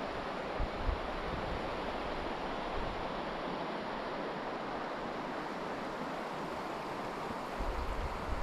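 Steady rushing of a waterfall, with wind buffeting the microphone in low rumbles about a second in and again near the end.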